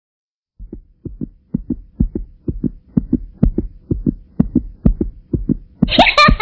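Heartbeat sound effect: steady, evenly paired low thumps, about two beats a second, starting abruptly out of silence. Music with jingling percussion comes in near the end.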